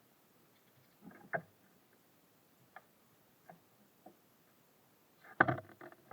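Birds at a feeder making scattered taps and knocks as they land and peck: a small cluster about a second in, a few single ticks, and a louder burst of knocks near the end.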